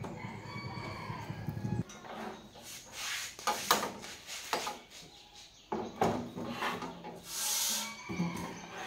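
Rubbing and scraping with irregular clicks and knocks, like tools and parts being handled and scraped on a workbench. A low buzz stops suddenly about two seconds in, and there is a short hiss near the end.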